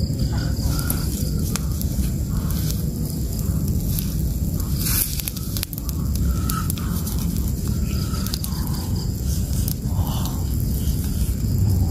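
Campfire of dry pine needles and twigs burning hard, with frequent crackles and small pops over a steady low rush.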